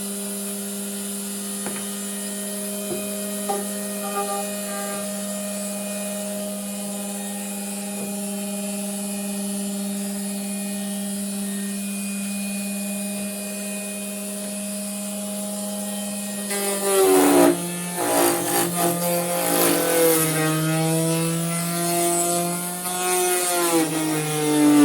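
Homemade wood router's electric motor running at a steady pitch. About two-thirds of the way through it gets louder and its pitch sags and wavers again and again as it comes under load cutting the wood.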